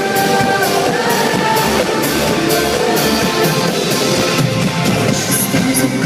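Live pop-rock concert music over an arena sound system, recorded from the audience: a band with a steady drum beat of about two strokes a second and guitar.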